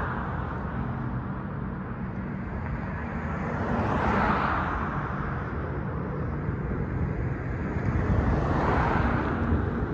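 Steady low drone of the approaching C-130 Hercules' four turboprop engines, mixed with street traffic; the hiss of passing vehicles swells twice, about four and about eight seconds in.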